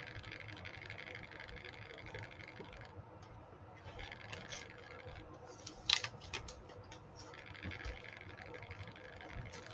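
Faint rustling as a paper art print is handled and moved about on a desk, with a cluster of sharp clicks about six seconds in.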